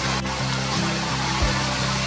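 Background music with low held notes that change every half second or so, over a steady rushing noise of flowing river water.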